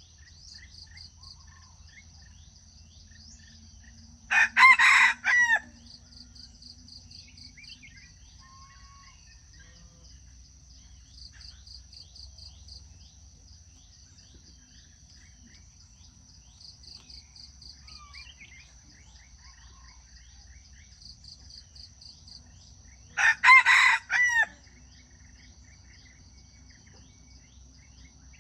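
A junglefowl cock crows twice, about twenty seconds apart, each crow short and broken into a few notes. Insects chirp steadily throughout, with a pulsing high trill.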